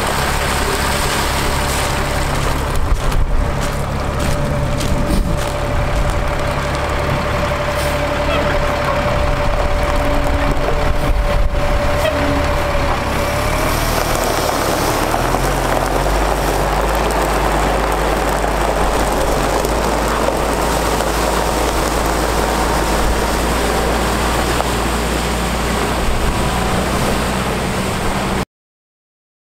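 A truck's Caterpillar 3126 diesel engine running steadily while water falls from the rear spray bar onto gravel. The sound changes a little about halfway through, and everything cuts off abruptly near the end.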